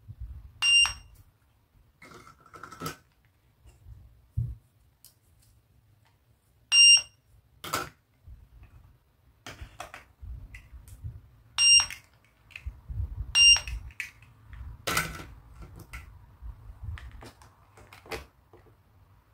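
Toy cash register's handheld scanner giving four short high beeps as toy food is scanned, each beep a single identical tone. Light plastic clicks and taps of the toys being handled fall in between.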